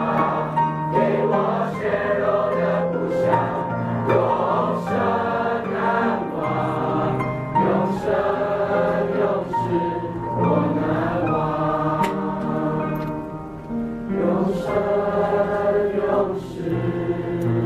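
A mixed choir of teenage boys and girls singing together, the phrases moving on every second or so, with a brief softer passage about two-thirds of the way through.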